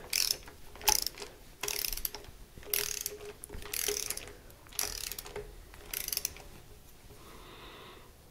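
Hand socket ratchet clicking in short runs, about once a second, as bolts on a diesel cylinder head are turned down in sequence. The clicking fades out in the last couple of seconds.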